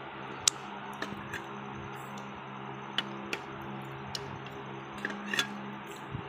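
Scattered sharp clicks and ticks, the loudest about half a second in, over a steady low hum and hiss.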